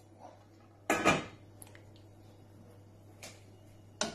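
Kitchenware clattering: one loud clatter about a second in, then two lighter knocks near the end.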